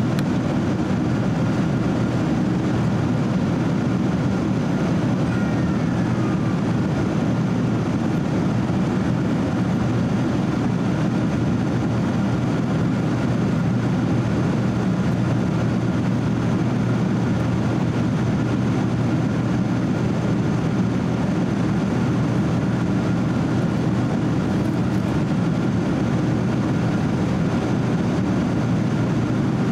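Steady in-flight cabin noise of a Boeing 767-300 airliner, heard from a window seat over the wing: an even low rumble of jet engines and rushing air, with a faint steady whine above it.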